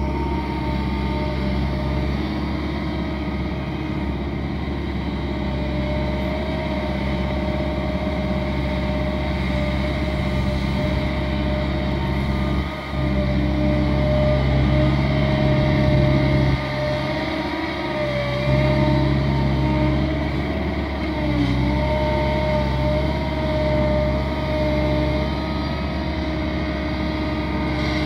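Diesel engine and hydraulics of a CAT M315D wheeled excavator running under load while it digs sand. The steady drone with a whining tone rises and falls with each bucket cycle, and drops briefly about a third and about three fifths of the way through.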